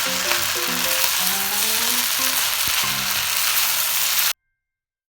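Kimchi fried rice sizzling steadily in a hot pan as it is mixed, cutting off abruptly a little over four seconds in.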